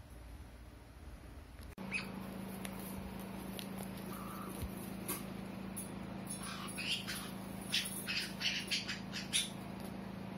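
Pet parrot giving a quick series of short squawks and chirps, bunched in the second half, over a steady low hum that starts abruptly about two seconds in.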